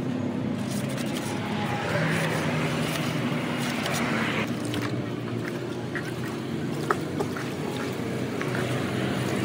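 Water sloshing and bubbling around a car radiator held in a tub of water, over a steady low motor hum, with a burst of hiss for a couple of seconds in the middle and a sharp click about seven seconds in. Near the end, a brush scrubs the radiator's fins in the water.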